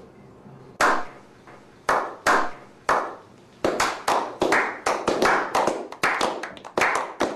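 Slow clap: single hand claps spaced about a second apart, each echoing, then several people join in and the clapping quickens to a few claps a second.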